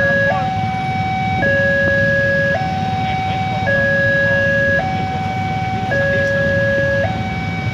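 Electronic level-crossing warning alarm sounding with the barriers down, a steady two-tone signal alternating between a higher and a lower tone about once a second. Under it is the low rumble of idling cars and motorcycles waiting at the crossing.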